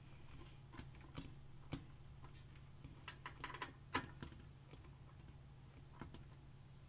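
Faint, scattered small clicks and taps of a screwdriver and screws as the motherboard is fastened into the PC case, a slightly louder click about four seconds in, over a faint steady hum.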